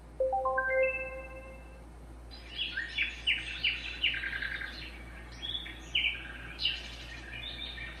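Renpho white noise sleep machine playing sounds through its speaker: a short rising run of chime notes, then a birdsong track of many quick chirps from about two seconds in.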